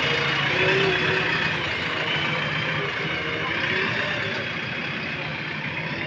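JCB 3DX backhoe loader's diesel engine running close by as the machine moves, a steady low hum with a higher, wavering whine over it.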